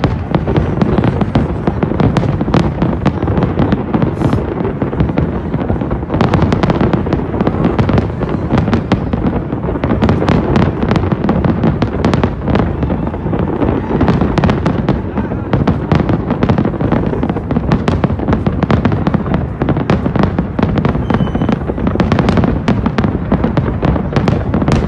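Fireworks display: many shells bursting in quick succession, a continuous run of bangs and crackles over a steady low rumble.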